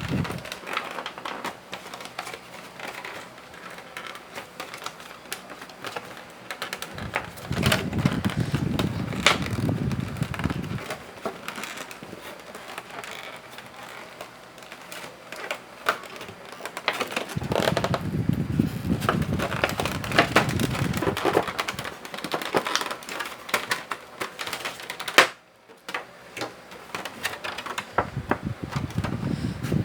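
Packaging being opened and handled: irregular clicks, crinkles and crackles, with one sharp loud knock near the end.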